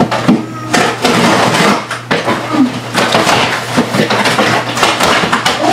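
Rustling and crinkling of packaging, with small knocks, as items are rummaged through.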